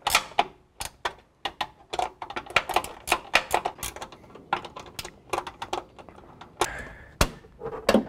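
Irregular run of sharp metallic clicks and taps from the hood latch hardware being handled and fastened, thickest between about two and four seconds in, with one sharper click about seven seconds in.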